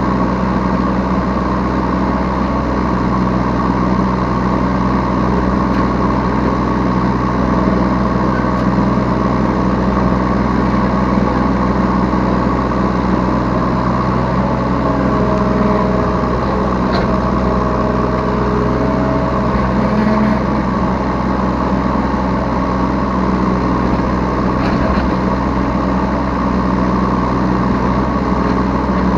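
Diesel engine of a Yanmar B3 Sigma 3-tonne mini excavator running steadily, heard from the operator's seat while it works.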